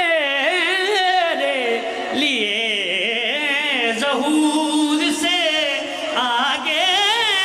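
A man singing a devotional qasida solo, unaccompanied, in long ornamented phrases with a strongly wavering pitch.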